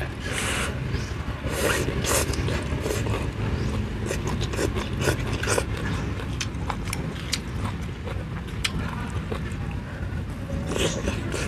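Close-up eating sounds: a slurp of noodles at the start, then wet chewing and mouth smacks with many short sharp clicks, over a steady low hum.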